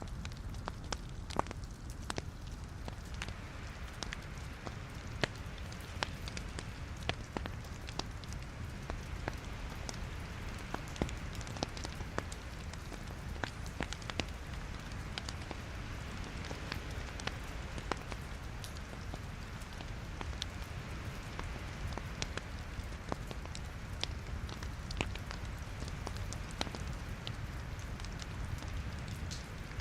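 Wood logs burning in a fireplace, crackling with many irregular sharp pops over a steady low rumble of the flames.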